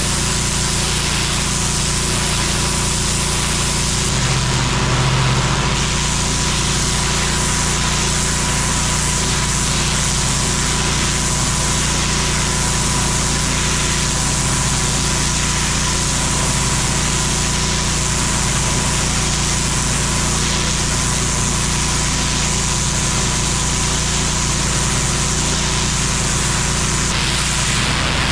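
Engine-driven pressure washer running steadily, its engine's drone under the hiss of a high-pressure water jet sprayed from a lance onto block paving. The engine note swells briefly about four to five seconds in.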